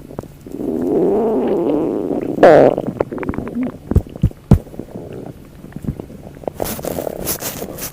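Human stomach rumbling and gurgling. A long low gurgle wavers in pitch and ends in a brief louder, higher gurgle about two and a half seconds in. A few sharp pops follow, and a run of quick clicks comes near the end.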